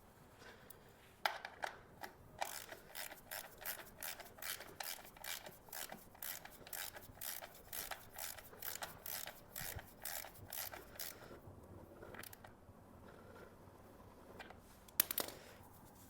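Ratchet wrench being worked in steady strokes, clicking about two to three times a second for some ten seconds before stopping. A single sharper click or knock comes near the end.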